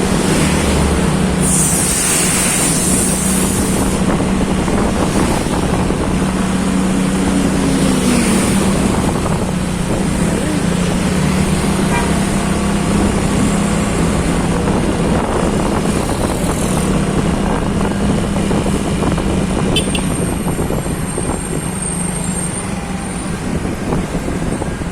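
Vehicle engine running steadily on the road under continuous road and wind noise, with a brief hiss about two seconds in.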